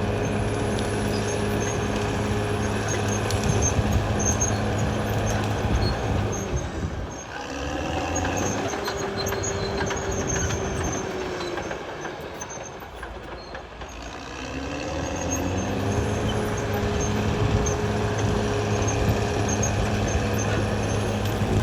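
Caterpillar D6R XL bulldozer's diesel engine running steadily. It drops off about seven seconds in and again about twelve to fourteen seconds in, then picks back up.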